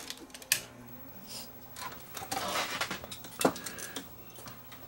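A switch clicks about half a second in and a steady low mains hum starts: the bench power supply coming on. Scattered light clicks and knocks of handling on the workbench follow.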